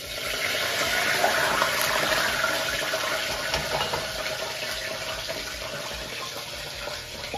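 Hot frying oil being poured off from a stainless steel sauté pan into a bowl: a steady pouring hiss that fades slowly.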